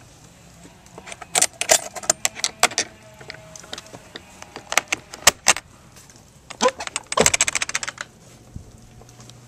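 Keys jangling and sharp metal clicks as a padlock is unlocked and taken off a steel hasp on a wooden shed door, followed by a small barrel bolt being worked. About seven seconds in comes a dense metallic rattle as the door is pulled open.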